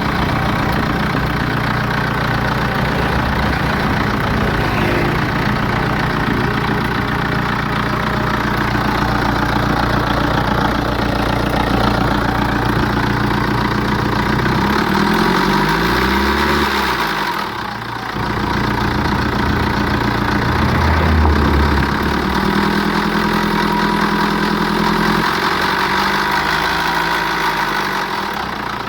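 BMW N47 four-cylinder diesel engine idling steadily, with the timing chain noise of a worn chain and guides that are due for replacement.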